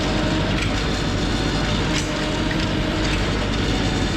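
PTO-driven tractor winch reeling in cable under load, over the steady running of the LS tractor's diesel engine, with a few sharp clicks from the winch mechanism.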